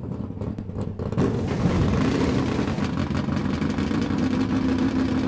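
A car engine running loud at high revs, starting about a second in and holding a steady pitch, after a few sharp clicks at the start.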